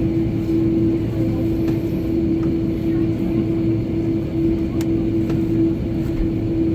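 Airbus A330 engines running, heard from inside the passenger cabin: a steady, loud drone with a constant hum over a low rumble.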